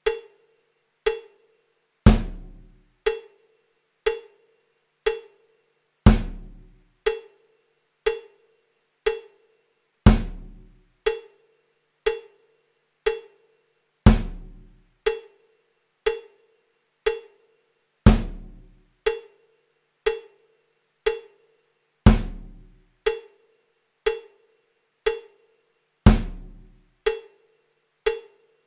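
Looped holding-card music of sparse percussion: a short, ringing knock about once a second, with a deep bass drum hit on every fourth beat.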